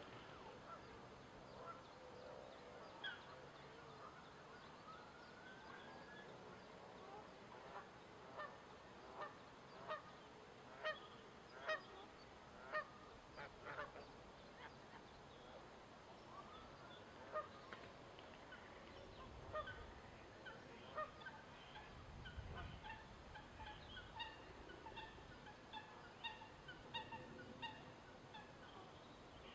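Domestic geese honking: a run of about eight honks, roughly one a second and growing louder, then scattered shorter, quicker calls later on.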